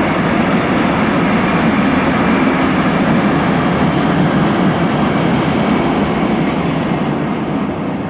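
ČD Cargo freight train of Eas open wagons behind class 182 electric locomotive 182 080-2 rolling past, a loud steady noise of wheels on rails and rattling wagons. It begins to fade near the end.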